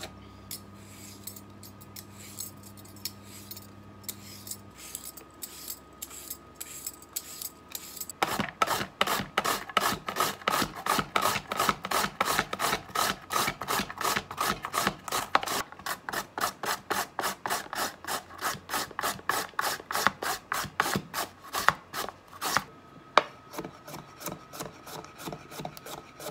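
Daikon radish rubbed back and forth on a hand julienne grater: quick rasping strokes, several a second. They are faint at first and much louder from about a third of the way in. A few separate sharp knocks come near the end.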